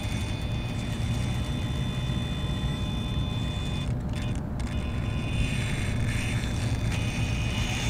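RC rock crawler with a Castle Mamba X ESC and 2850kv brushless motor creeping slowly forward on asphalt: a steady high whine from the motor and drivetrain over a low rumble.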